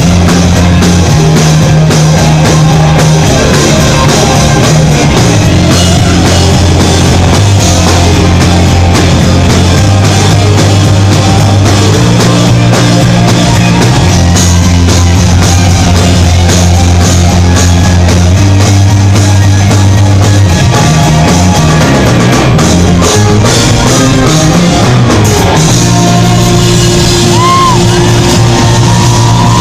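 Rock band playing live and loud: strummed guitar and drum kit over low bass notes that change every couple of seconds.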